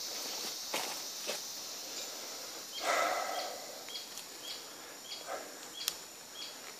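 Forest ambience over a steady high hiss. About three seconds in, a short animal call stands out, followed by a string of short high chirps about two a second. A few light rustles of footsteps in dry leaf litter are heard.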